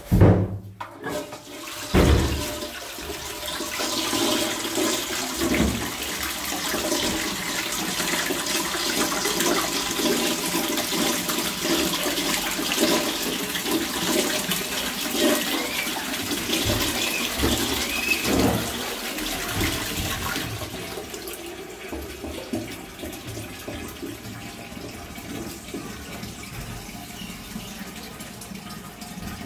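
Toilet flush on a Royal Doulton Ashdown/Shires Supaline pan with a Twyford Classic lever cistern. A clunk at the start and another about two seconds in, then water rushing through the bowl for about eighteen seconds. The flush then drops to the quieter, steady hiss of the cistern refilling.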